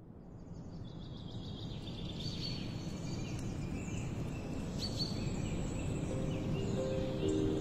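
Outdoor nature ambience fading in: a steady low rush with birds chirping and calling repeatedly above it. Soft music tones come in near the end.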